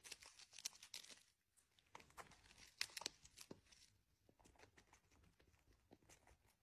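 Faint, scattered small clicks and smacks of a kitten suckling on a milk feeding bottle, the loudest few about three seconds in.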